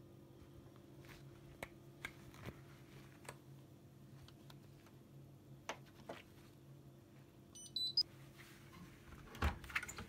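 Hotpoint WMFUG842P washing machine's control panel giving a short electronic power-on chime of a few stepped tones about three-quarters of the way in, among faint button clicks. A clunk follows near the end as the door is opened.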